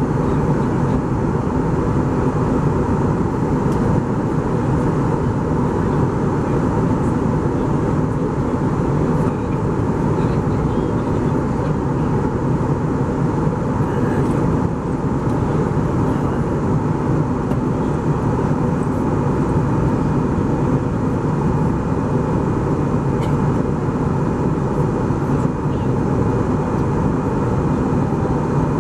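Steady cabin noise of an Airbus A320 in cruise, heard from a passenger seat: an even drone of engines and rushing airflow, with a faint thin tone above it.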